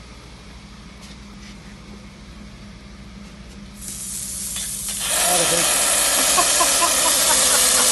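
Compressed air and water blasting out of a semi truck's air tank drain valve as it is opened, starting about four seconds in and turning into a loud, steady hiss about a second later. The tank is being drained of the water that has built up inside it.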